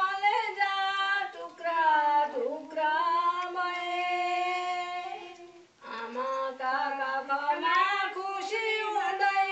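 A woman singing unaccompanied, with a long held note in the middle, a short pause about six seconds in, then the melody goes on.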